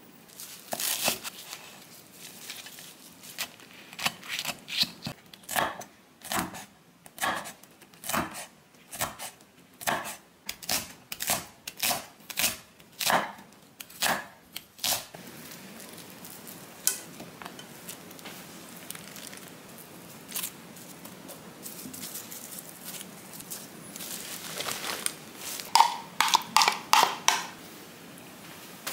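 Kitchen knife chopping green onion and chili on a wooden cutting board, sharp strokes about one or two a second for the first half. Then it goes quieter, with a quick run of knocks and clatter near the end.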